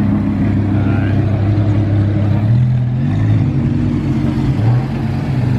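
Car engine idling with a deep, steady rumble, its pitch stepping up slightly a couple of times as it is given a little throttle.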